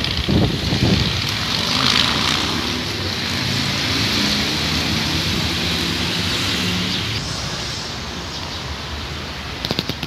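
Wind buffeting a phone microphone along with rustling tree leaves: a steady rushing noise with heavy low rumbling gusts in the first second. A few clicks near the end.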